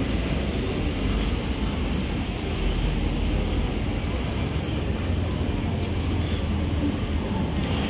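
Steady city street ambience: a low rumble with a faint murmur of passers-by, and wind buffeting the microphone.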